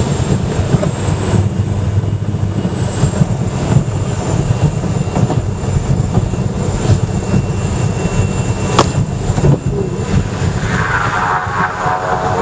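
Light ski plane's noise: a loud, steady low rumble with a rough rattle through it. A sharp click comes about nine seconds in, and near the end a propeller engine note with several tones comes in.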